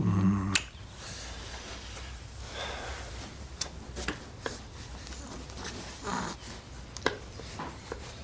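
A short voiced murmur at the very start, then quiet room tone with soft breaths and a few faint clicks.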